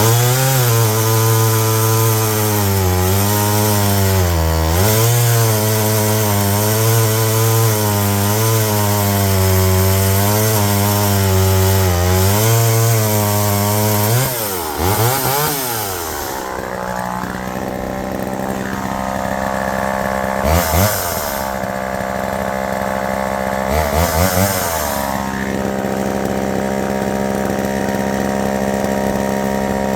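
Homelite EZ two-stroke chainsaw running at high revs, its pitch wavering as it works through a cut for about fourteen seconds. It then drops back to idle and is blipped twice before idling on.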